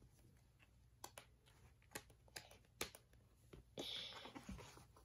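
Near silence with faint scattered clicks and taps and a brief soft rustle about four seconds in, from a hand handling the paper page of a picture book.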